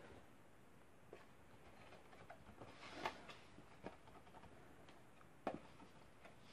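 Near silence with faint rustling and a few light taps from hands working peat substrate in a small plastic container. The sharpest tap comes about five and a half seconds in.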